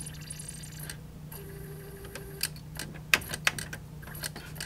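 Clicks of the plastic front-panel buttons on a JVC PC-X560 boombox being pressed, a few sharp clicks in the second half, over a low steady hum. The unit's CD player is failing to read the disc.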